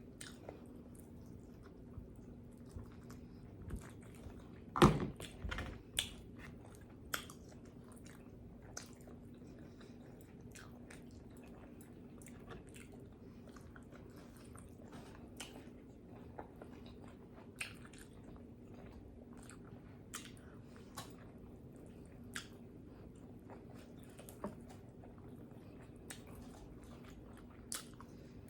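Close-miked mouth sounds of someone eating pizza: scattered wet chewing and smacking clicks, with one much louder bite or crunch about five seconds in.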